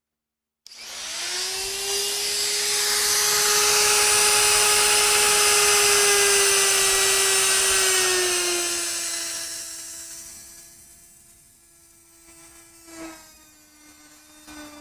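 Electric power tool motor starting abruptly and running with a steady high whine and loud hiss. The hiss fades after about eight seconds while the whine carries on lower and a little lower in pitch. A single click comes near the end.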